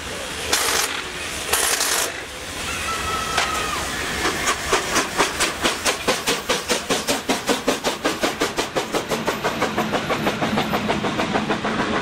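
Steam locomotive 556.0506, a heavy Czechoslovak 2-10-0 freight engine, pulling away from a stand with a train. Its exhaust beats come slow and loud, about one a second, then quicken steadily to about five a second as it gathers speed and passes close by.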